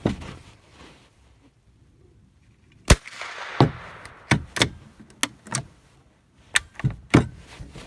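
Shooting a Marlin XT-22 .22 Long Rifle: one sharp rifle shot about three seconds in, followed by a string of further sharp cracks and clicks over the next four seconds, some of them nearly as loud.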